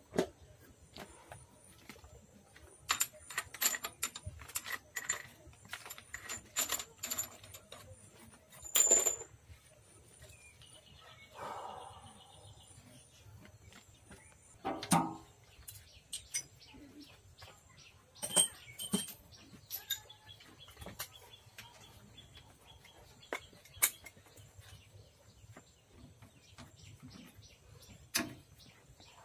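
Scattered sharp metallic clinks and clatters of steel hand tools and gearbox parts being handled, with a few louder knocks of metal against metal.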